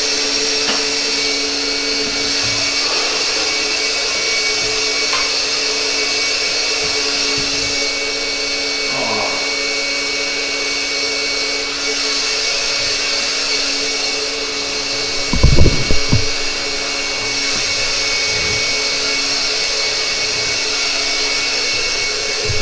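A small electric motor and blower running steadily with a constant whine and hiss, then cutting off at the very end. A couple of loud thumps about fifteen seconds in.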